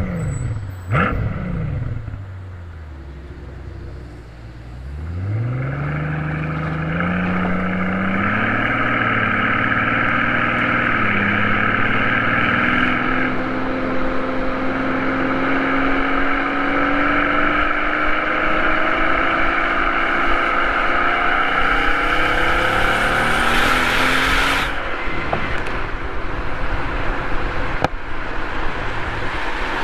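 Mercedes-Benz SL65 AMG's bi-turbo V12 blipped twice and then idling. It pulls away and accelerates, with a dip in pitch at a gear change about eleven seconds in. Then comes a long steady climb in pitch that drops away about twenty-four seconds in as it eases off, with a rushing noise over the engine while it pulls hard.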